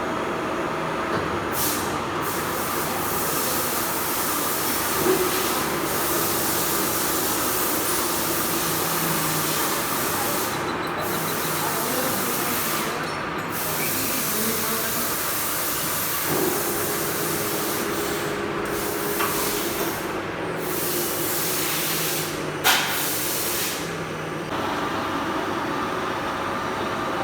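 Metal lathe running steadily, a motor hum with a constant hiss under it; the pitch of the hum shifts about two-thirds of the way through, and a few short clicks occur, the sharpest near the end.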